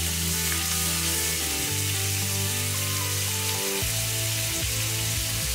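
Strip loin steaks sizzling steadily as they fry in a pan with butter, garlic and rosemary, under background music.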